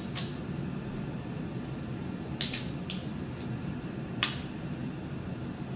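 Snow crab legs being eaten close to the microphone: about half a dozen short, sharp, wet clicks as shell is picked and the meat chewed, the loudest about two and a half seconds in, over a steady low hum.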